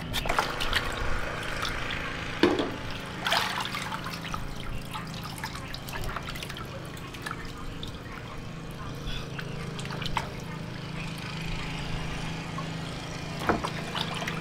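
Water sloshing, splashing and dripping as a goat leg is rubbed and washed by hand in a plastic basin, with a few louder splashes, over a steady low hum.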